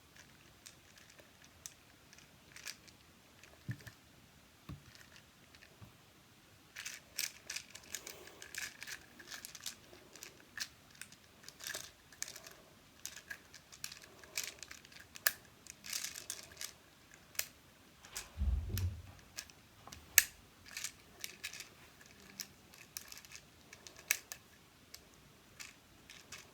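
Plastic pieces of a soda-can-shaped twisty puzzle clicking and rattling as it is turned, in quick irregular runs of clicks. There is a dull low thump about eighteen seconds in.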